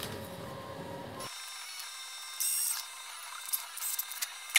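Light handling noise as 3D-printed plastic tire-mold halves and a cordless drill are set down on a table: a short rustle about halfway through, then a few sharp clicks and knocks, the loudest near the end.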